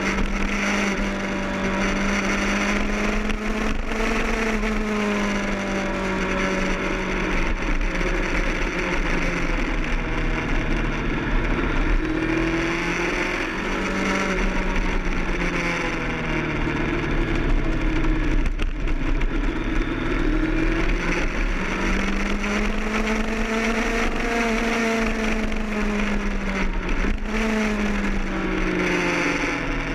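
Sport motorcycle engine running at speed under heavy wind rush on the camera; the engine note rises and falls slowly as the throttle opens and closes, with one quicker drop and rise near the end.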